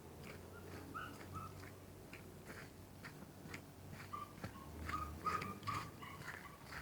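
Footsteps of a hiker walking a forest trail, about two steps a second, with short high chirps in between that come more often near the end.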